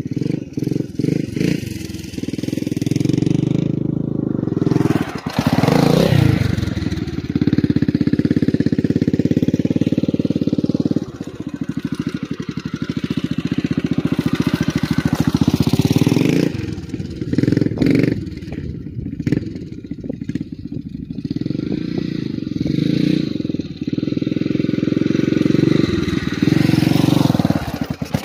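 1980 Honda XR500R's single-cylinder four-stroke engine running as the dirt bike is ridden, revs rising and falling. It grows louder and fades several times as the bike comes near and moves away, and is loud again near the end as the bike comes up the mound.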